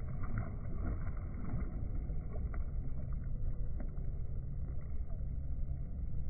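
Steady, muffled low rumble of wind buffeting a phone's microphone held just above a swimming pool, with water moving and a few faint clicks.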